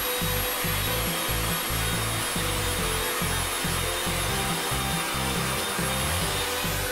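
A drill press spinning a homemade plywood sanding drum, with a workpiece pressed against it: a steady rubbing of abrasive on the workpiece over the running motor. Background music plays along with it.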